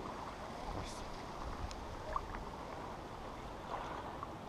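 Steady low wind and lake-water noise with a few faint, brief ticks.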